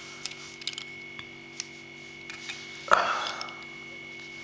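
Knipex pliers wrench handled against a small nut: a few light metal clicks, then one louder clack about three seconds in, over a steady electrical hum.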